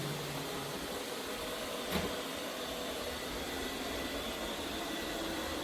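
MAMNV robot vacuum cleaner running with a steady whir, with a light knock about two seconds in.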